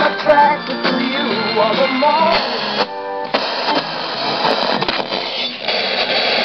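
Guitar music from an FM station playing through the speakers of a 1985 Panasonic Ambience RK-F2 boombox. It breaks off briefly about three seconds in and carries on with a denser sound.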